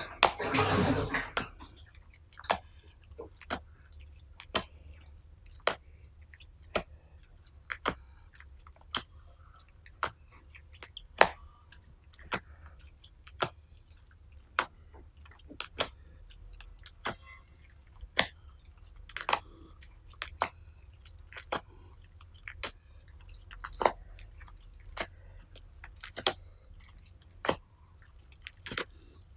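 Foamed clear slime being squished and stretched: a wet squishing burst in the first second as a hand presses it, then sharp little pops about once a second as the long stretched slime crackles.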